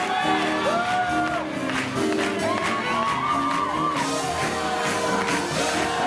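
A live big band plays fast swing music, with shouts and whoops from the crowd over it.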